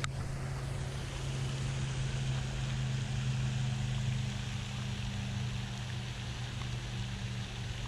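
A steady low mechanical hum holding one pitch, like a motor or pump running, over a faint outdoor noise, with a brief click at the very start.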